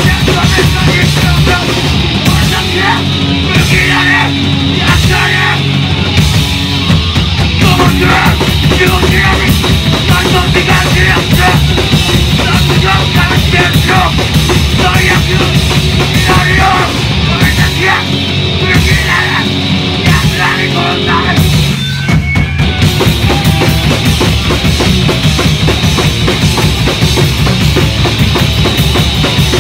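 A punk band playing live and loud, with drums and crashing cymbals under a dense wall of amplified band sound. It breaks off briefly about three-quarters of the way through, then comes back in.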